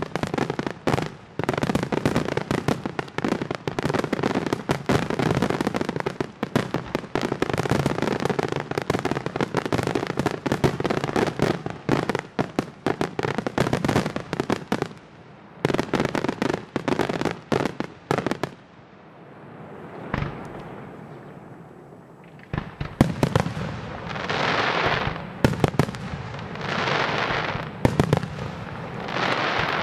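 Aerial firework shells bursting in a dense, rapid barrage of bangs and crackle for about the first eighteen seconds. After a short lull, shells burst one at a time about every two seconds near the end, each followed by about a second of hissing crackle.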